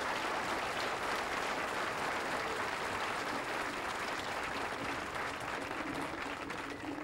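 A crowd applauding steadily after a speech, dying down a little near the end.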